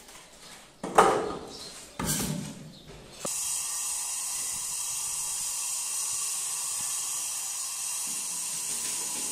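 A few short scraping strokes, then a steady hiss that starts abruptly about three seconds in and holds level.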